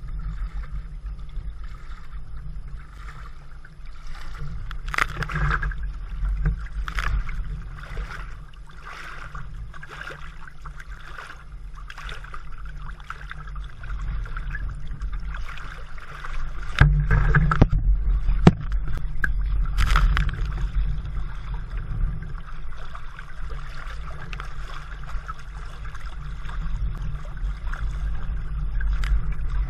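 Choppy water lapping and slapping against a kayak-mounted camera at the waterline, over a steady low rumble. Sharp splashes come every second or so and grow louder about halfway through.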